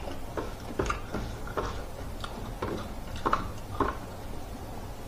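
Close-up eating sounds of a person chewing food with the mouth open, in an irregular run of short wet smacking clicks.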